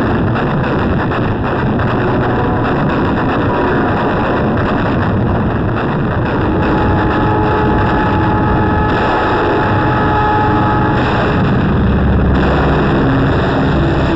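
Loud, steady roar of battle noise on an old wartime film soundtrack: warplane engines and anti-aircraft gunfire blended into one continuous din, with a few faint steady tones about seven to eleven seconds in.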